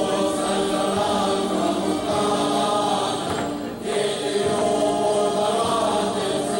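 Music with a group of voices singing together in sustained notes, pausing briefly between phrases a little over three seconds in.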